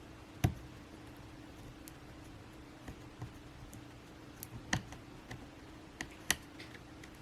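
Sporadic sharp clicks and taps of small plastic laptop parts being handled as the Wi-Fi antenna cable is pressed into place in the laptop's frame. The loudest click comes about half a second in, and a few more follow in a cluster past the middle, over a faint steady hum.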